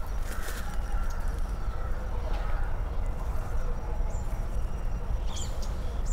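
Outdoor ambience: a steady low rumble with faint bird calls, including a few short high chirps near the end.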